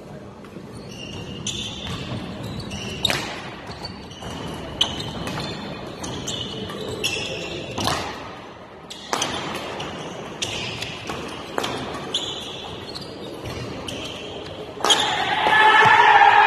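Badminton rally: rackets striking the shuttlecock every second or so, with sports shoes squeaking sharply on the court floor between shots. Near the end the rally finishes and spectators break into loud shouting and cheering.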